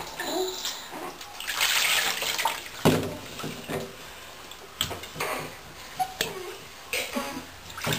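Bathwater splashing and dripping as a wet washcloth is worked over a baby in a plastic bath seat, in irregular bursts, with one sharp knock about three seconds in.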